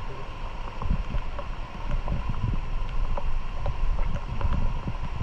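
Water sloshing and lapping around the camera in a river current, with irregular low rumbling buffets and small splashy clicks.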